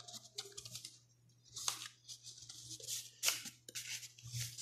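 Paper leaflets and packaging rustling, with brief taps and crinkles, as items are handled and lifted out of a phone's retail box, over a steady low electrical hum.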